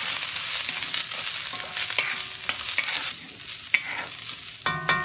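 Sliced chayote sizzling in hot oil in a cast-iron wok, stirred and tossed with a wooden spoon that scrapes and taps against the pan.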